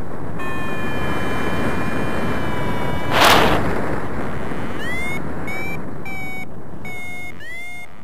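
Wind rushing over the microphone in flight, with a paragliding variometer's electronic tone held steady for about two and a half seconds, a loud gust about three seconds in, then a run of about five short beeps, each rising in pitch, in the last three seconds.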